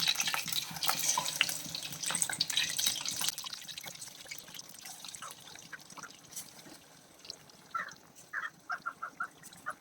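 Food sizzling and crackling in a hot pan, loud at first and dying down over a few seconds. A few short chirps near the end.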